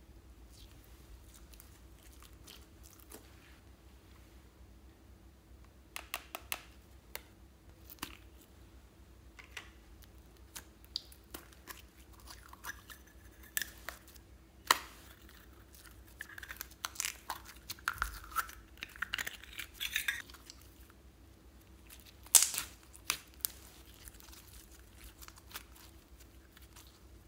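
Slime being stretched, squeezed and pressed by hand: sticky squelches, crackles and pops in scattered clusters, with quiet gaps between. The loudest crackling burst comes about three-quarters of the way through.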